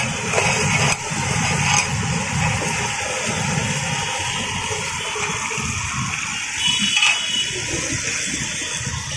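Fish frying in shallow oil on a large flat griddle: a steady sizzle with a low rumble underneath.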